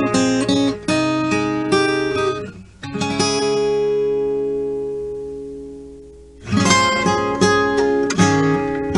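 Acoustic guitar playing the intro of a gentle pop song: picked notes, then about three seconds in a single chord is left ringing and fading away, before the picking starts again.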